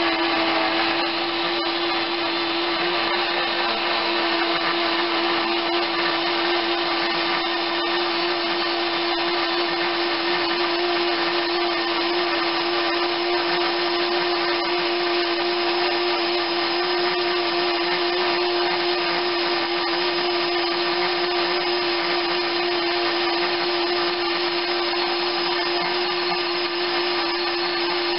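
Small electric blender's motor running at one steady pitch, blending a liquid mixture of egg yolks and vinegar reduction.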